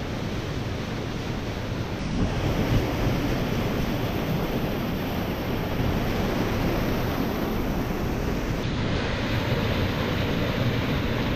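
Steady rushing of a waterfall's cascade pouring over rock into a plunge pool, with wind rumbling on the microphone.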